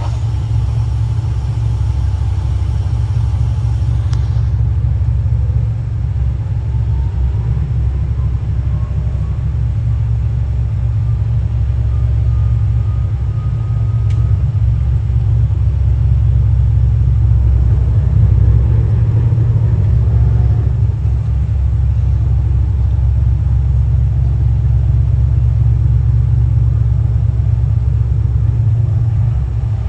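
Low, steady rumble of the 47 m Heesen motor yacht Sirocco's engines as she backs stern-first into her berth, with a faint rising whine partway through.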